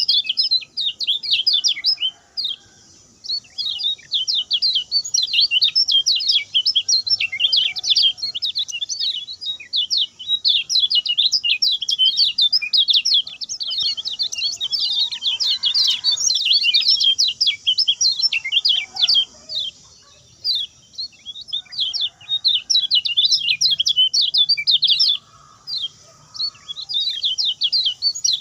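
Kecial kuning (lemon-bellied white-eye) singing a fast, continuous song of rapid high chirps, broken by a few short pauses.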